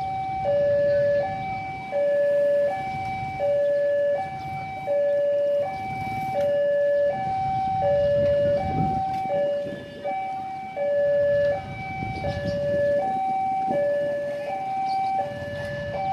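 Railway level-crossing warning alarm sounding a two-note electronic tone, high and low notes alternating about every three-quarters of a second, signalling that a train is approaching. A low rumble of street traffic runs beneath it.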